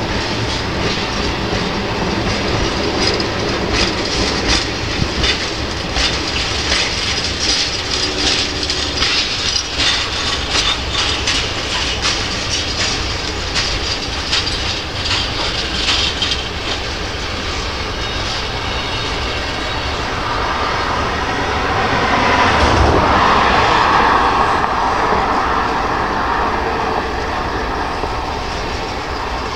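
Freight train cars, tank cars then covered hoppers, rolling past at steady speed. Their steel wheels click rapidly over the rail joints under a continuous rolling rumble, which swells louder for a few seconds about two-thirds of the way through.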